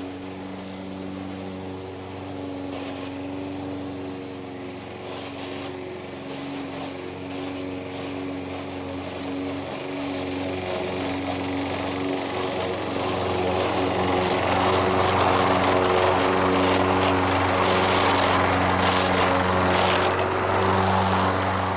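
Toro Recycler walk-behind lawn mower with a bad transmission, its engine running steadily while mowing. About two-thirds of the way through, the sound grows louder and rougher.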